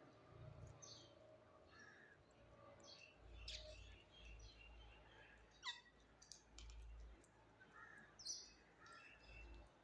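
Faint scattered bird chirps and calls, several of them quick sharp notes sweeping downward in pitch.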